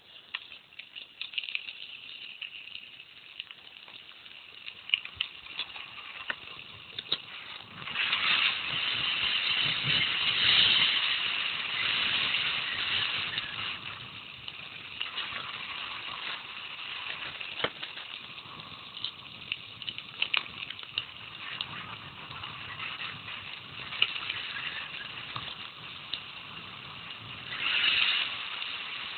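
Mountain bike rolling downhill on a gravel road: tyres crunching over gravel, with the bike rattling and scattered sharp knocks over bumps. A louder rush of noise swells about eight seconds in, lasts several seconds, and comes again briefly near the end.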